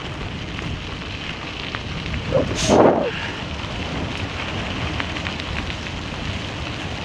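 Tyres crunching over a gravel road with a steady rumble from the vehicle driving on it. A louder jolt with a brief squeak comes about two and a half seconds in.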